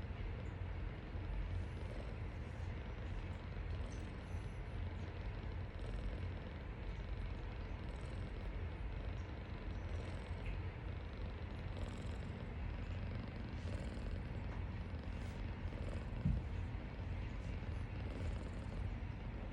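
Persian cat purring: a steady low rumble, with one brief bump about sixteen seconds in.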